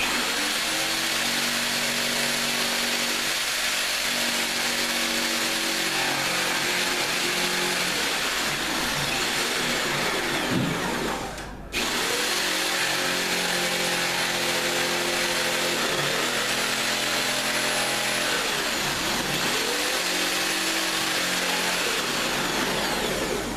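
Corded jigsaw cutting through a kitchen worktop, the motor running steadily under load. About halfway through it winds down and stops briefly, then starts again and carries on cutting until it winds down near the end.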